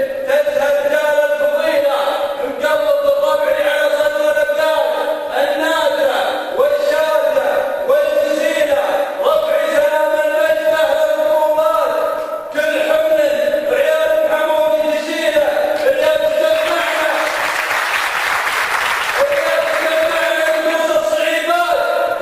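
A male voice chanting an Arabic poem in long, held, melodic lines. About three-quarters of the way through, the voice drops out for about two seconds of hiss-like noise, then the chanting resumes.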